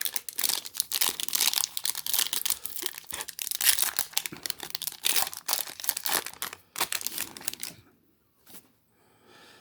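A trading card pack wrapper being torn open and crinkled by hand, a dense run of crackling and tearing that stops about eight seconds in.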